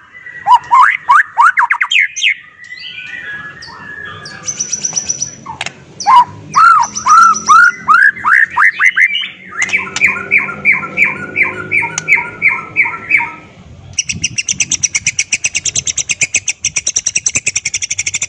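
White-rumped shama (murai batu) singing loudly: varied whistled phrases of sweeping notes, then a run of evenly repeated notes about three a second, and from about three-quarters of the way in a fast, high chatter of many notes a second.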